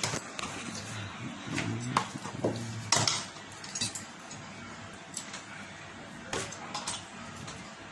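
Kitchen utensils clinking and knocking against pots and dishes in scattered, irregular strikes, the loudest about two and three seconds in.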